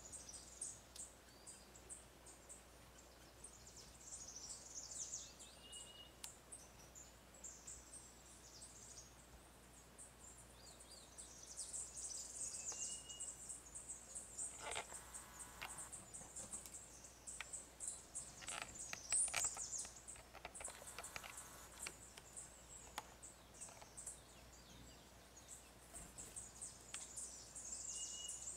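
Faint forest background: high, thin chirps and trills run almost throughout, with a few short whistled notes and some brief rustling around the middle.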